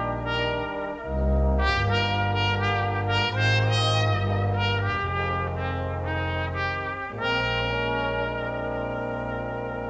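Background music with held chords that change every second or two.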